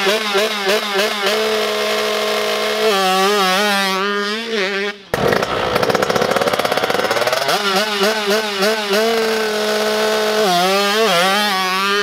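KTM motocross bike engine held at steady high revs, then revved up and down in quick blips, ahead of a practice start. There is a sudden break about five seconds in, after which the same steady hold and blipping starts again.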